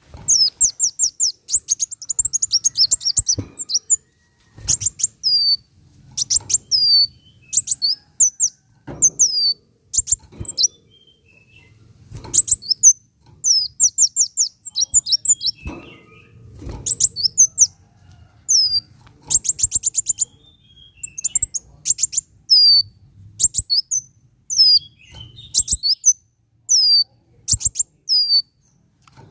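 Kolibri wulung sunbird singing: rapid bursts of high, sharp down-slurred notes and fast trills, repeated with short gaps between phrases.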